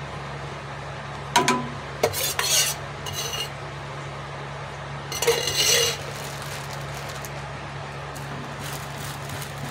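Metal spoon scraping and clinking against a flat iron griddle (tawa) while spreading ghee, in short bursts about a second and a half in, around two to three seconds, and again just after five seconds. A steady low hum runs underneath.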